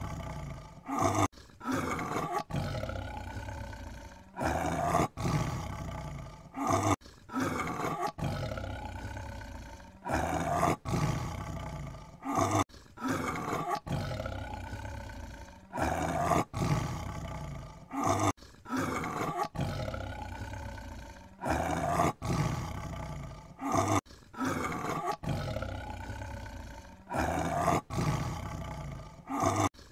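Tiger roaring over and over, one roar after another every second or two, with abrupt breaks between them.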